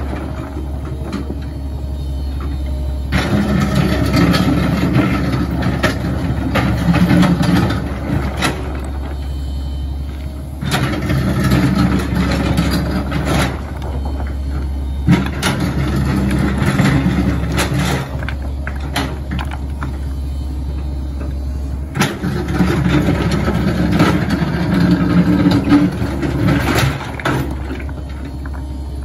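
Komatsu PC138US tracked excavator's diesel engine running steadily, rising and getting busier in three stretches of several seconds as the arm and bucket work, with knocks of rocks being moved.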